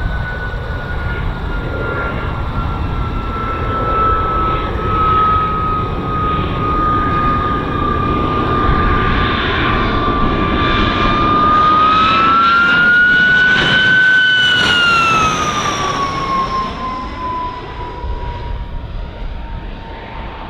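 The de Havilland Goblin centrifugal-flow turbojet of a DH-115 Vampire howls on final approach, a strong whine over a rumble. The whine sinks slowly, rises a little about two-thirds of the way through as the jet is loudest, then drops in pitch and fades.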